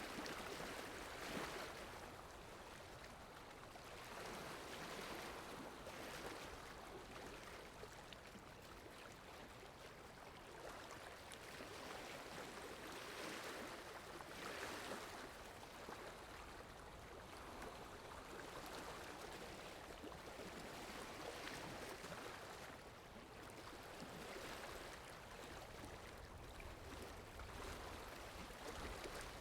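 Sea water splashing and lapping, swelling and ebbing every second or two.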